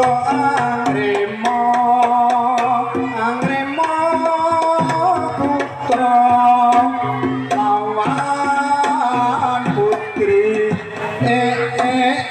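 Javanese jaran kepang (kuda lumping) accompaniment music: hand drums beating a quick rhythm under held melodic tones that shift in pitch every second or so.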